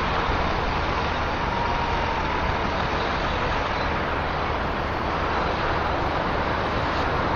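Distant semi-truck pulling two 53-foot trailers, its diesel engine running steadily as it reverses slowly. Heard as an even rush of noise over a low, steady hum.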